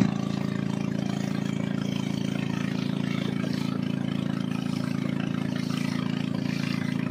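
Motor of a small wooden boat running steadily under way, an even engine note that holds its speed throughout.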